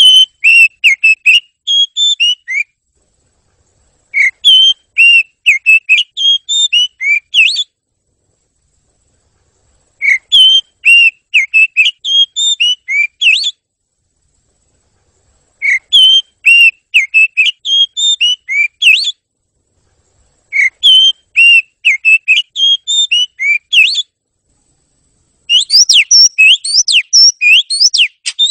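Oriental magpie-robin (kacer) singing loud whistled phrases of about two to three seconds, with short pauses between them, six phrases in all. The last phrase is faster and fuller, with quick rising sweeps.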